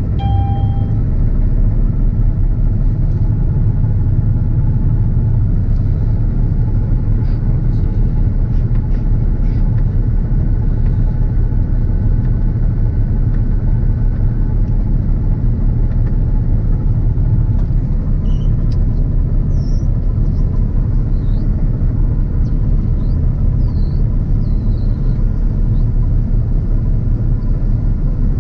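Claas Lexion 770 combine harvester running steadily, heard from the cab: a continuous deep rumble with a faint steady whine above it.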